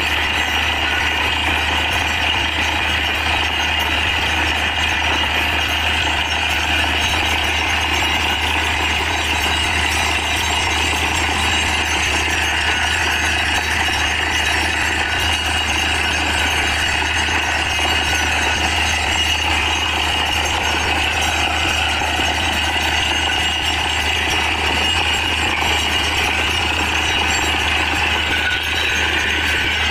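Truck-mounted borewell drilling rig running steadily, compressed air blasting water and slurry up out of the bore, over the deep, constant hum of the rig's engine and compressor.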